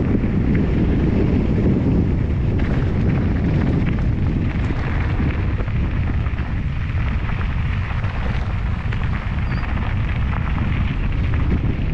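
Wind buffeting the microphone of a camera riding along on a mountain bike in motion, a loud low rumble, with scattered clicks and rattles from the bike on the trail.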